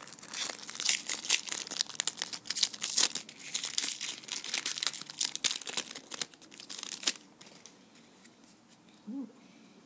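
A trading-card pack's foil wrapper being torn open and crinkled by hand: a dense run of sharp crackles and tearing that stops about seven seconds in.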